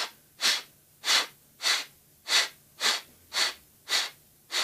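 A person breathing quickly and audibly close to the microphone, short hissy breaths at a slightly uneven pace of roughly two a second.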